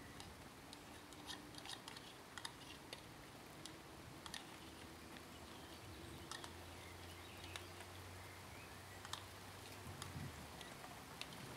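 Faint, scattered soft clicks and scrapes of a silicone spatula against a glass dish, as a cheesy cauliflower mixture is spooned and spread in it.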